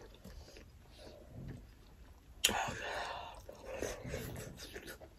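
Eating sounds from someone chewing momos dipped in achar, close to the microphone: soft chewing, then a sudden sharp click about halfway through, followed by a couple of seconds of louder noisy mouth sounds.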